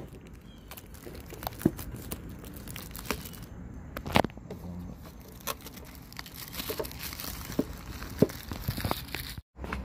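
Plastic shrink wrap being picked at, torn and crinkled off a small cardboard box, with scattered sharp crackles and taps.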